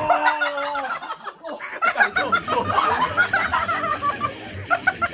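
A man's long, drawn-out shout just as the stick strikes the sole of his foot, followed by several people laughing hard.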